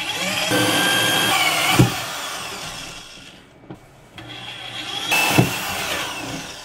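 Power drill with a hole saw cutting holes through the wall for a bidet valve. It runs in two bursts, the motor whining and the saw grinding, the second starting about four seconds in, with a sharp knock in each.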